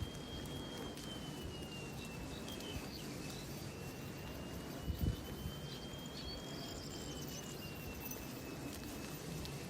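Rural outdoor ambience: a steady low rumble like wind on the microphone, with one low thump about five seconds in, a few faint bird chirps, and a thin high tone that slowly wavers up and down.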